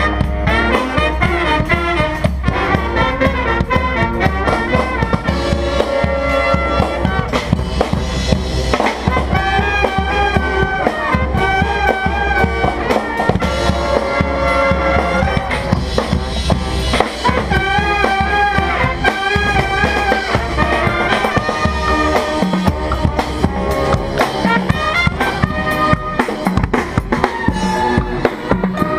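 Brass band playing live: trumpets, trombones and a tuba over a bass drum and other drums keeping a steady beat.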